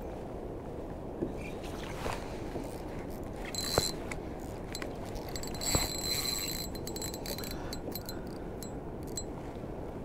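Spinning rod and reel being worked: a few sharp clicks, a brief thin whir about four seconds in, and another as the lure is cast near six seconds, then a run of quick reel ticks. All of this sits over a steady low rush.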